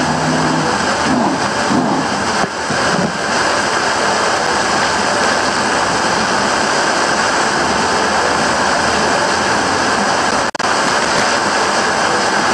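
Loud, steady mass of race car and truck engines running slowly around a dirt oval on pace laps, an even rumble with no single clear engine note.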